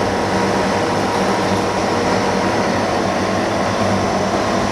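Steady rushing air from the overhead fan and filter unit of a dust-free room, with a constant low hum.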